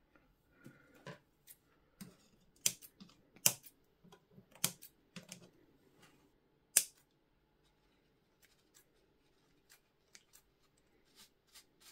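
Small scissors snipping rubberised horsehair hedge material: a run of sharp snips, several loud ones in the first seven seconds, then fainter, sparser clicks.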